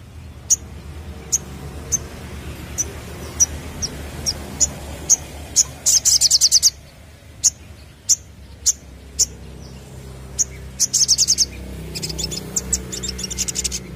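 A caged male sunbird (kolibri sogon) calling: single sharp, high chips about every half second, broken by fast chattering trills about six seconds in, near eleven seconds and again toward the end.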